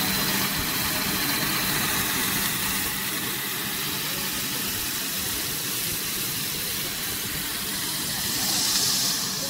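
Corn puff snack extrusion line running: a steady mechanical drone with hiss and a faint steady hum, swelling into a brief louder hiss just before the end.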